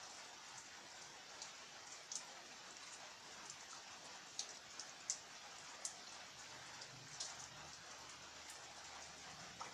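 Steady light rain, with scattered single drops ticking sharply on a hard surface at irregular moments.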